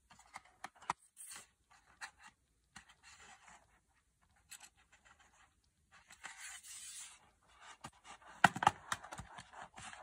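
Faint scattered clicks and scrapes of hands and a screwdriver working on the metal bottom cover of an HP EliteBook 840 G5 laptop, with a cluster of louder clicks and scrapes about eight and a half seconds in.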